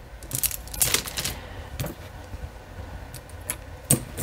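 Costume jewelry being handled, small metal and glass pieces clicking and jingling together: a flurry of clinks in the first second, then a few separate clicks.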